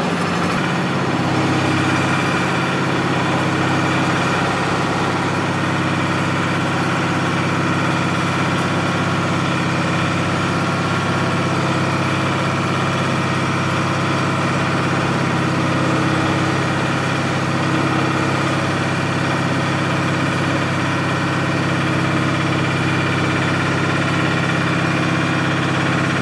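Rotary drying machine running steadily, a low even drone that holds one pitch throughout.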